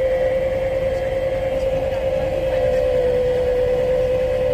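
Travel trailer's electric tongue jack motor running as it lowers the coupler onto the truck's hitch ball: a steady whine whose pitch sags slightly about three seconds in.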